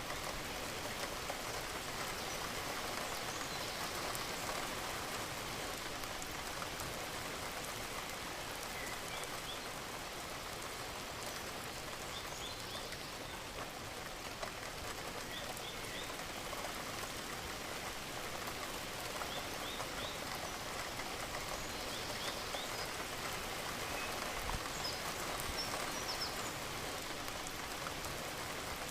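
Steady rain falling and pattering on surfaces, an even hiss that does not let up. Now and then there is a small group of short high chirps.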